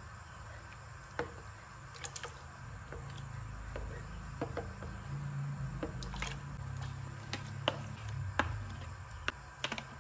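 Raw pork chunks and sliced red onion being tipped from a bowl into a pot of water with a wooden spoon: irregular soft splashes, plops and light knocks of the spoon against the bowl.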